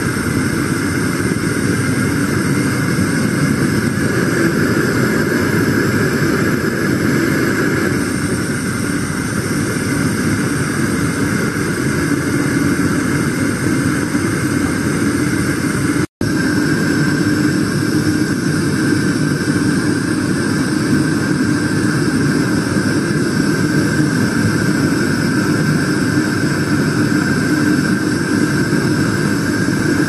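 Propane gas torch burning steadily in a furnace made from an LPG cylinder, a constant hiss: a low-temperature firing to cure the furnace's perlite and refractory-mortar lining. The sound breaks off for an instant about 16 seconds in.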